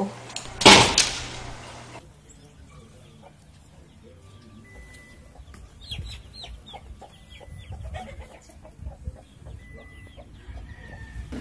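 About a second in, a cat hisses in one short, loud burst. After a cut, a hen clucks and her chicks peep, in many short calls, while a cat comes near the brood.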